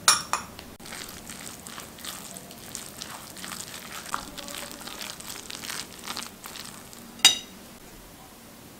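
Metal spoon mixing a moist chopped spinach, onion and herb filling in a glass bowl: a few seconds of wet, crunchy stirring, with a sharp ringing clink of the spoon on the glass at the start and another, louder one about seven seconds in.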